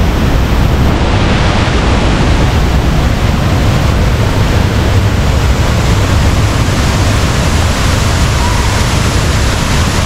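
Powerful waterfall and the white water churning below it, heard close up: a loud, steady rush of water.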